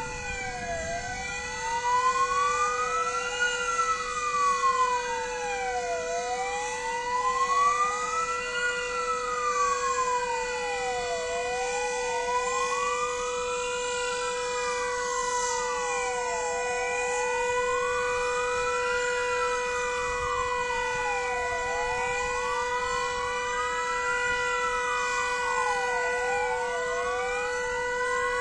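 Several fire engine sirens wail together, each rising and falling over about five seconds and out of step with one another, over a steady held siren tone. This is the siren salute sounded at 5 p.m. on 1 August for "Godzina W", the Warsaw Uprising anniversary.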